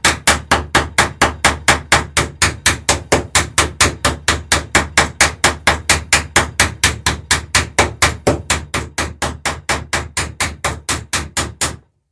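Hammer rapidly striking a copper rivet through the lapped wooden planking of a dory, riveting the plank: a long, even run of sharp taps, about four a second, a little softer near the end.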